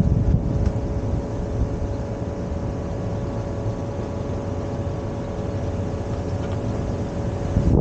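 Strong wind buffeting the microphone, a steady low rumbling rush, with a faint steady hum underneath.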